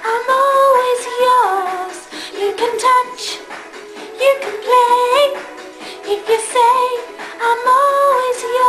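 A female voice singing a bright pop melody in short phrases over a backing track.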